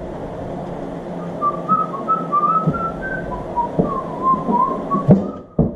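A man whistling a wandering tune to himself, with a few sharp clicks and knocks of parts being handled.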